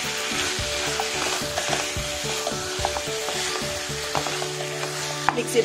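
Masala-coated chicken pieces sizzling in a nonstick kadai as a wooden spatula stirs and turns them, with small scrapes of the spatula against the pan.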